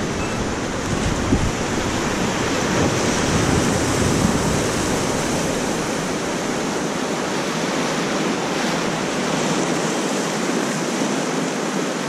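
Whitewater river rapids rushing around an inflatable raft: a steady, even rush of water, its deep rumble thinning somewhat near the end.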